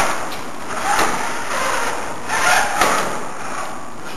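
FRC competition robot's electric drive motors and gearboxes running as it drives over carpet, surging louder twice, with a couple of sharp knocks.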